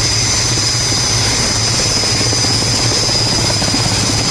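Helicopter running: a steady, loud noise of rotor and engine with no break.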